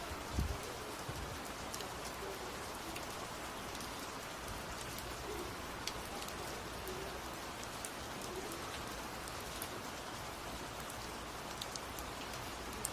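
Steady rain falling, with scattered sharp drops striking close by. A brief low thump sounds about half a second in.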